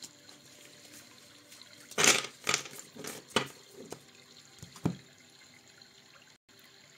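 Tarot cards being handled and turned face up on a table: a quick flurry of slaps and rustles about two seconds in, the loudest, then a few lighter card sounds over the next three seconds.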